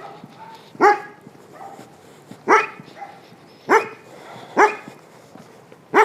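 A village dog barking: five single loud barks spaced about a second apart.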